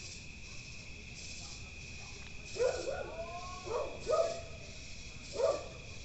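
A steady chorus of crickets, with a dog barking four times from about halfway through.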